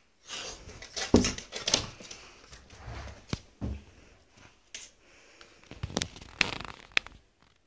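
A cat and a puppy play-fighting: irregular scuffling and knocks of paws and bodies, loudest a little past one second in and again near the end.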